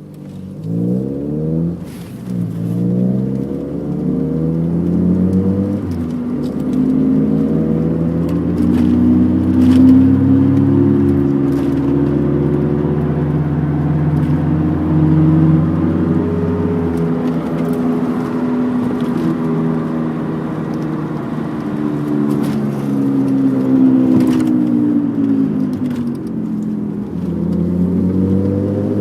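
MG Maestro 2.0i's four-cylinder engine and road noise while driving, pulling up through the gears with pitch climbing and dropping back in the first six seconds, then holding a fairly steady speed. Under it runs a constant humming/whirring noise that gets louder the faster the car goes and changes when cornering, deeper turning left and gone turning right.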